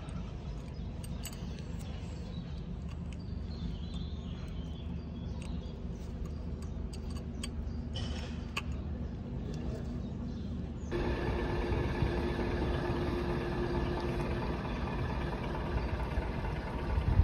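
Steady low mechanical rumble like an engine running, with scattered light metallic clicks of gearbox parts being handled. About eleven seconds in, the rumble turns fuller and louder, with a steady hum over it.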